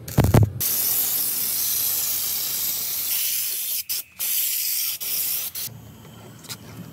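Compressed-air spray gun spraying paint onto a car's rocker panel: a steady loud hiss of air and atomised paint, with a short break just before the middle, stopping about two-thirds of the way through. A brief knock is heard at the very start.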